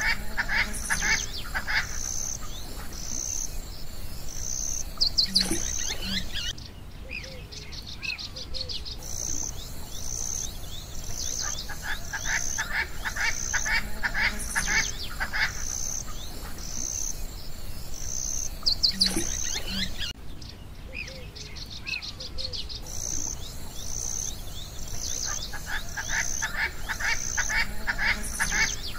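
Nature ambience of birds and insects. A high chirp repeats evenly about twice a second, with bursts of a rapid, lower trill and short bird chirps over it. The same pattern comes round again about every 13 to 14 seconds.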